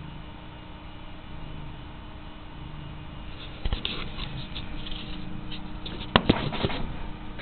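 Domestic cat purring, a low, steady rumble that swells and eases in slow cycles. From about halfway, fur rustles against the camera, with a couple of sharp knocks, the loudest near the end, as the camera is pushed into the cat's coat.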